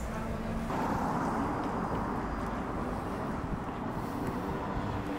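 Outdoor street ambience with steady road traffic noise and a low rumble. A steady low hum drops out less than a second in, where the sound changes to a broader hiss.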